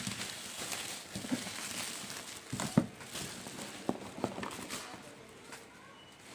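Bubble-wrap plastic packaging crinkling and rustling as it is handled and pulled open, with several knocks; the sharpest comes a little under three seconds in.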